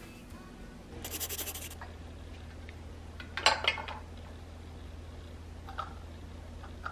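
Tableware being handled on an enamel tray: a brief scraping rustle about a second in, then a sharp clatter of dishes, the loudest sound, and two light clinks near the end as the small bowls and the egg cup are set down. A low steady hum runs underneath.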